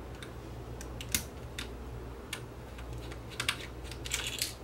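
Scattered light clicks and taps as fingers handle the radio-controlled clock's plastic housing and circuit board, over a steady low hum.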